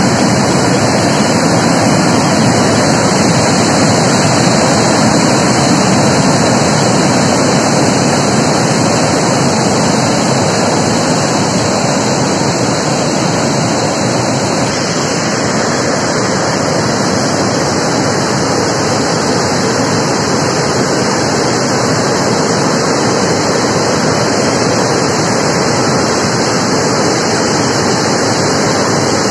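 Loud, steady rush of muddy floodwater pouring over a dam weir and churning in the turbulent water below it. The river is in full flood, swollen by cyclone rain.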